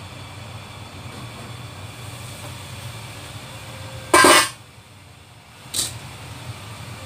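Water boiling steadily in a wok under a stainless steel dome lid, which is lifted off. A loud, brief metallic clatter with a ringing note comes about four seconds in, and a shorter knock near six seconds as a china plate is set down on the wire steaming rack.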